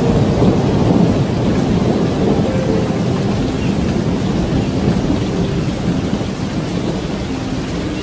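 A long roll of thunder over steady rain, slowly dying away.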